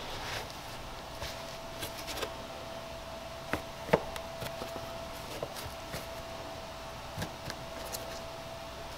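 Scattered small clicks and snaps of a plastic tail-light housing and lens being pried apart at the softened sealant by gloved hands, the sharpest snap about four seconds in, over a faint steady hum.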